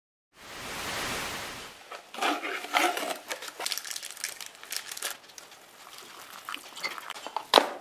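A brief rush of noise, then a plastic seasoning sachet crinkling and tearing as it is shaken into an instant ramen cup, followed by water poured into the cup, with a sharp click near the end.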